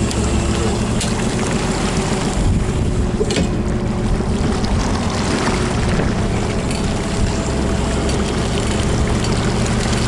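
Fishing boat's engine running steadily under a rushing haze of wind on the microphone and water noise.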